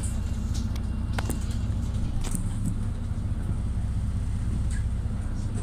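Mercedes-Benz Citaro city bus engine running with a steady low drone, heard from inside the passenger cabin as the bus moves slowly. A couple of faint clicks come through about a second and two seconds in.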